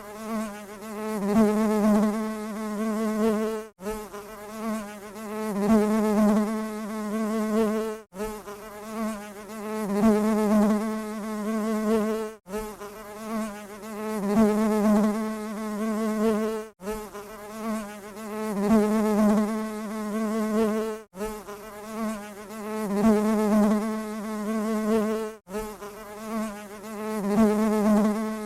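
Honey bee buzzing: a steady wing hum that wavers slightly in pitch and swells louder and softer as if the bee drifts close and away. It breaks off for an instant about every four seconds, where the short recording loops.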